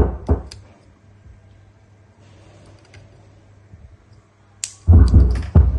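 A few sharp clicks and knocks at the start, then a steady low mains-type hum. Near the end a click is followed by loud, bass-heavy music: the repaired power amplifier being tested on a music signal.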